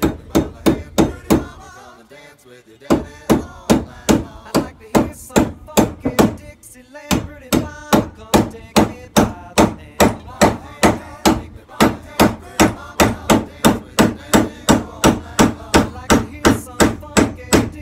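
Claw hammer striking the top of a hatchet head and its new locust wood handle, driving the head onto the handle. The blows come in a steady run of about three a second, with a pause of about a second near the start and a brief pause about halfway through.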